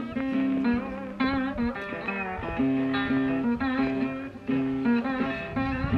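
Background guitar music: plucked notes with wavering, bent high notes over a repeating low note.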